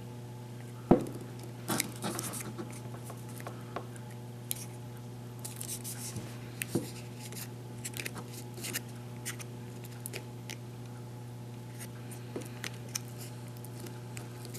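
Fingers folding and pressing glued cardstock tabs down onto a paper shell: scattered paper rustles and light taps, with a sharp knock about a second in. A steady low hum runs underneath.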